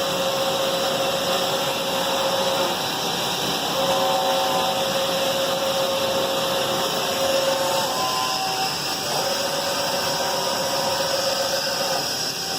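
Hurco VMX60Ui CNC machining center running, a motor whine that starts and stops three times over a steady loud hiss of machine and shop noise. The stop-start pattern fits the axes or table being jogged.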